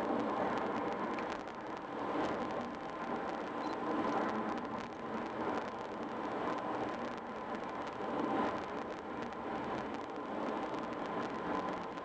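Steady tyre and road noise of a car cruising on a concrete highway bridge deck, swelling and easing a little every couple of seconds, with a faint steady whine.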